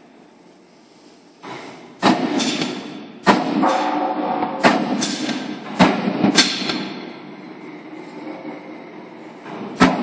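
Loud, irregular bangs and knocks, about seven in all, starting about two seconds in, some ringing briefly, over a steady background hum of factory noise.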